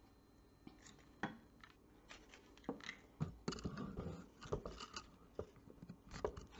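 Faint, irregular clicks and light knocks of hands handling a plate on a wooden tabletop, as it is moved and set down.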